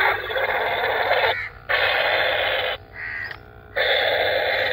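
Recorded dinosaur roars, harsh and raspy: three of about a second each with short gaps, and a fainter short one between the second and third.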